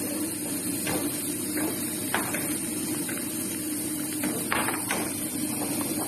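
Wooden spoon stirring and scraping dry shrimp, garlic and spices in a pot, a few short scrapes at irregular moments over a steady low hum.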